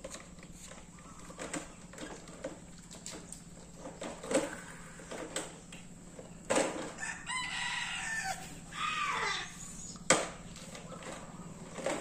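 A rooster crows once, a call of about three seconds that starts just past the middle and falls away at the end. Light knocks and clatter of plastic toy trucks being handled come and go throughout.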